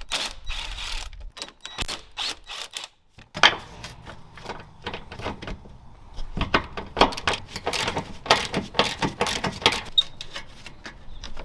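Hand tools working on the car's underside as the mounting brackets are unbolted: quick runs of sharp metallic clicks, with clinks and knocks. The loudest knock comes about three and a half seconds in.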